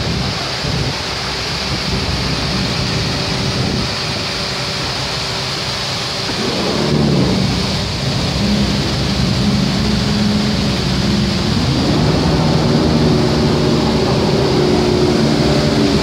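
Hengjanefossen waterfall's water and spray rushing down close by, a loud steady wash of noise. Under it, the tour boat's engine hums steadily, its pitch shifting about six seconds in and again near twelve seconds.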